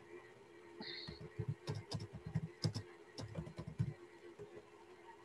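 Computer keyboard being typed: a quick run of about a dozen soft keystrokes lasting a couple of seconds, over a faint steady hum. A short high tone comes about a second in.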